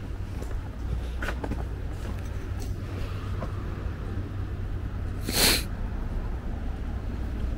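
Outdoor street ambience: a steady low rumble with a few faint clicks, and about five and a half seconds in, one short, sharp burst of hissing noise.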